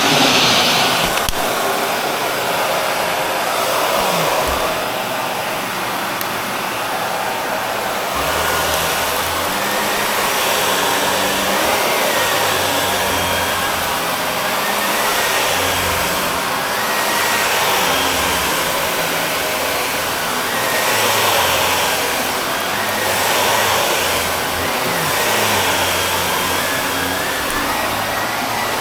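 Shark Navigator Lift-Away vacuum running steadily while vacuuming another vacuum's filter, its suction noise swelling and easing about every two seconds as the nozzle works over the filter.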